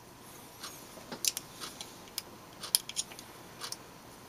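Hard drive voice-coil magnets and their steel plates clicking and clinking as they are handled in the fingers: about ten light, scattered metallic clicks.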